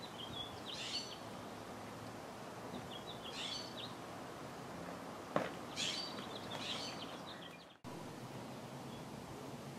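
Small birds chirping in three short bursts of quick, high twittering over steady faint background noise, with a single click about five seconds in.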